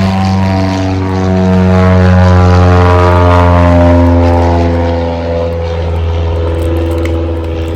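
Propeller airplane's piston engine passing close by. It grows louder to a peak a couple of seconds in, then fades, its pitch sliding down as it goes past.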